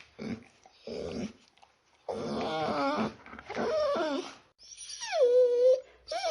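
Dog whining: two short soft whimpers, then three longer wavering whines, the last sliding down in pitch and held steady.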